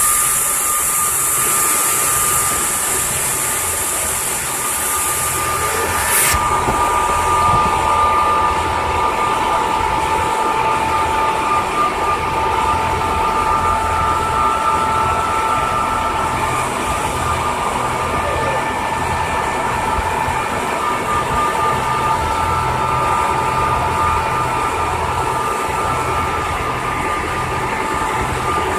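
River ferry's engine running steadily underway: a low throb with a steady whine on top, over the rush of water. A high hiss stops suddenly about six seconds in.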